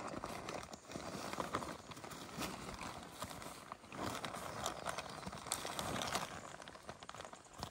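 Nylon canvas of a rolled-up, deflated inflatable swag rustling and crinkling as straps are wrapped around it, with irregular small clicks and knocks from the strap hardware and handling.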